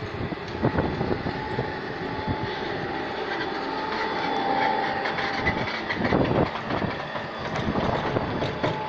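Biomass briquetting machine running while pressing coffee husk: a steady, dense mechanical clatter of knocks and rattles with a faint steady whine, and a louder burst of knocking about six seconds in.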